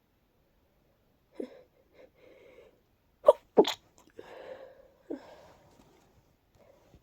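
A person with a head cold sneezing: two sharp, congested, breathy sneezes in quick succession about three seconds in, with short breathy sounds before and after.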